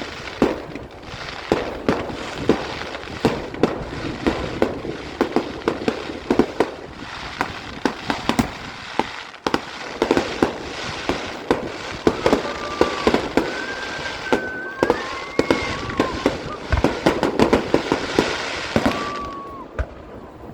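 Fireworks going off in quick succession: a dense run of sharp bangs and pops, with a few high whistling tones in the second half.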